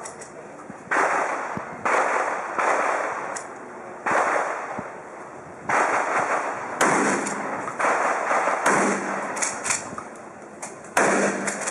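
Shotgun fired about eight times at an uneven pace, each shot a sharp report that trails off in about a second of echo.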